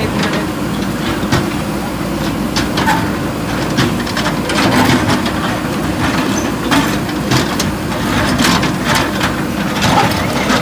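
JCB 3DX backhoe loader's diesel engine running steadily, with frequent sharp knocks and crunching of demolition work.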